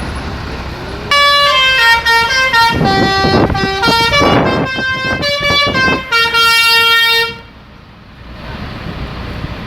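Bus 'telolet' musical horn playing a melody of several notes stepping up and down, starting about a second in and cutting off about six seconds later, with vehicle engine noise before and after it.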